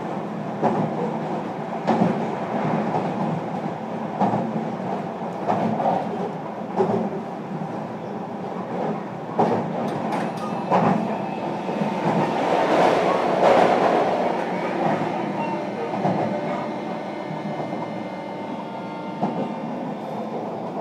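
Interior running sound of a JR Kyushu 305 series electric train, heard in its motor car: a steady wheel-and-track rumble broken by short rail-joint clicks. A thin motor whine joins about ten seconds in and stays to the end.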